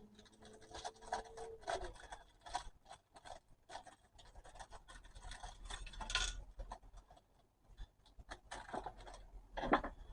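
Light scratching and rubbing from small clock parts being handled by hand, with scattered small clicks. A faint steady hum fades out in the first couple of seconds.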